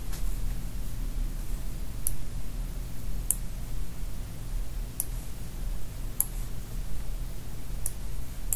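Steady low electrical hum with a handful of single, sharp computer mouse clicks, spaced about one to two seconds apart.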